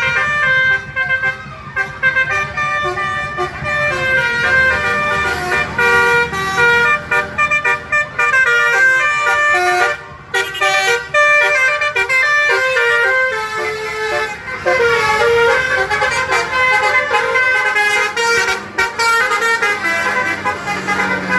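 Telolet basuri multi-tone musical horn playing a quick melody, one horn note after another, with a brief break about ten seconds in.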